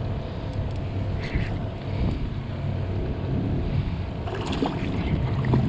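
Wind buffeting the microphone over water noise around a fishing kayak, with a faint steady low hum underneath.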